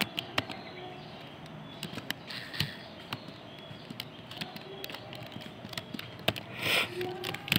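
Laptop keyboard being typed on: irregular key clicks, several a second. Near the end there is one brief, louder rush of noise.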